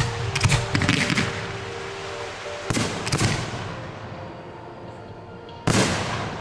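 Aerial firework shells bursting in the sky. There is a quick run of three bangs at the start, two more about three seconds in, and one loud report near the end, each trailing off in a fading rumble.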